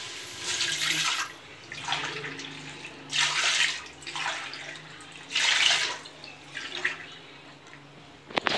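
Water poured tumblerful by tumblerful into a large aluminium pressure cooker: a string of separate splashes about every one to two seconds, with a short metallic clatter near the end.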